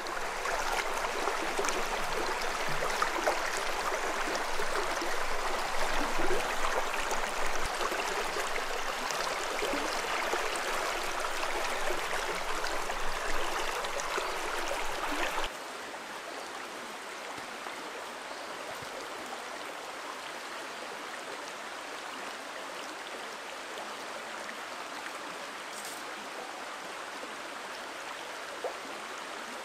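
Shallow stream water rushing over rocks, close and louder with small splashes as a hand works in the water, then dropping suddenly about halfway through to a steadier, quieter rush.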